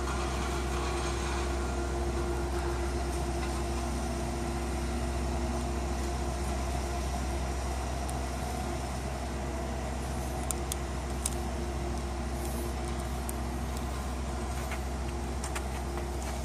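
A steady mechanical hum, like a motor or fan running, with a few faint sharp clicks about two-thirds of the way through.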